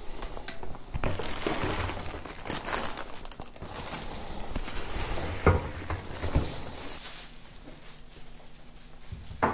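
Packaging being handled while unboxing: a cardboard box, plastic parts bags and paper wrapping rustling and crinkling, with a few sharp knocks about five and six seconds in.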